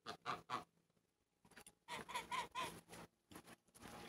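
Domestic poultry calling quietly: a quick series of short calls that rise and fall, about two seconds in, after a few faint clicks near the start.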